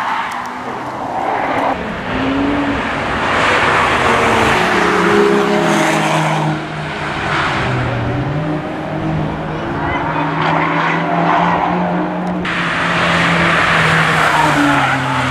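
Cars driven hard through a race-track corner one after another: engines revving and changing pitch, with tyres squealing. The sound changes abruptly about twelve seconds in as a different car takes over.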